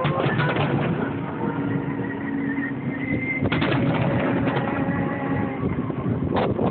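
Fireworks going off: a bang at the start, a cluster of bangs and crackles about three and a half seconds in, and two sharp bangs near the end.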